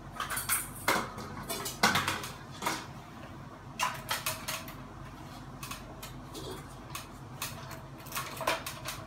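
Metal hardware and hand tools clinking and knocking as ceiling fan blades are fitted, in irregular, scattered taps, a few with a short metallic ring.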